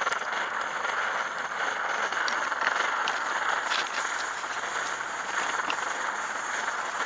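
PAK-COOK camp stove, a clone of the SVEA 123R liquid-fuel stove, burning steadily under a pot with an even rushing hiss, with a few faint ticks.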